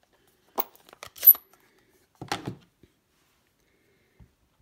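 A few short clacks and taps of rubber-stamping supplies being handled on a craft desk. The loudest comes about a second in and carries a brief high ping.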